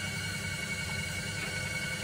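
Electric pottery wheel running: a steady low mechanical hum and rumble with a fast flutter, and a few faint steady high tones over a light hiss.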